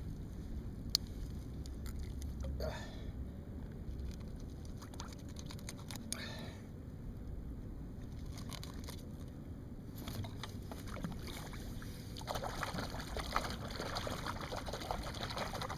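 Water lapping and trickling around a kayak, with low wind rumble on the microphone and two short squeaky sounds about three and six seconds in. A busier spell of splashing and dripping starts about twelve seconds in as the landed salmon is handled in the net.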